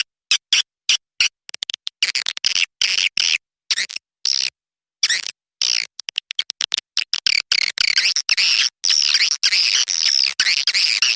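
Swiftlet calls, a recorded lure sound for a swiftlet house: high twittering chirps chopped into short pulses with dead-silent gaps, several a second at first, running in longer stretches from the middle on.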